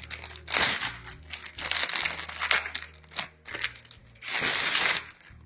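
Packaging rustling and crinkling in irregular bursts as mixer-grinder parts are unwrapped, with one longer, louder rustle near the end.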